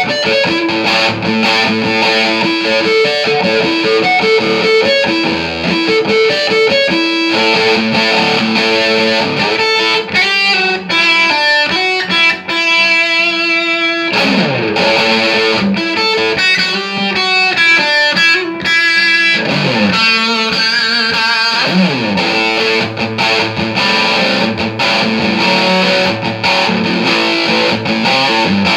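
Distorted electric guitar played through a Marshall JCM2000 DSL201 valve amp, being tested after a repair: riffs with fast note runs around the middle and several notes sliding down in pitch.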